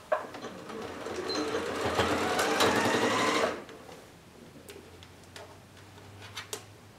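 Domestic electric sewing machine stitching across layered fabric. Its motor whine rises in pitch as it speeds up, then stops suddenly about three and a half seconds in. A few light clicks follow.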